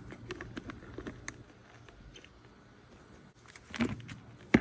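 Light handling noise of hands on the dirt bike's plastic bodywork: scattered small taps and clicks, a quiet stretch, then a few louder clicks, the sharpest near the end.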